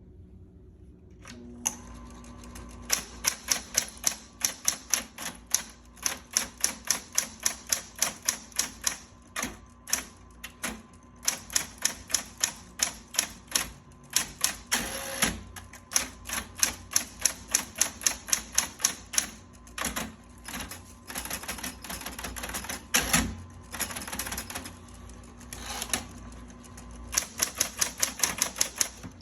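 Smith-Corona Coronet electric typewriter running: its motor hums on a second or so in, then keys strike in quick runs of about three to four a second, broken by short pauses and a couple of longer, heavier mechanical strokes.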